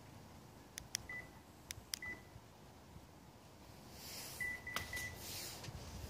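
Two pairs of sharp clicks, each followed by a short high beep, as the lock button is pressed twice to trigger the X-LINK 500L remote starter. About two seconds later its piezo buzzer gives a quick run of beeps, signalling that it is preparing to start the engine.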